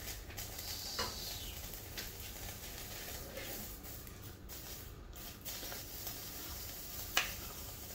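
A metal spoon stirring glutinous rice, seafood and coconut cream in a stainless steel frying pan. Scraping and sloshing go on over a steady low hiss, with a few sharp clicks of the spoon against the pan, the loudest near the end.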